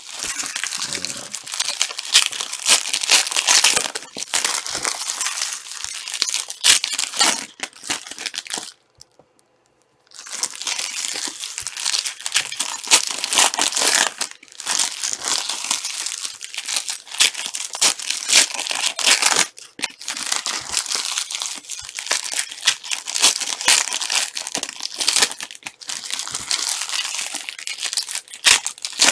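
Trading card pack wrappers being torn open and crinkled in the hands: continuous crackling and rustling, with a short pause about nine seconds in.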